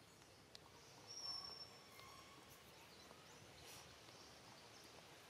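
Near silence: quiet outdoor ambience with a few faint ticks and a short, steady high-pitched call a little over a second in.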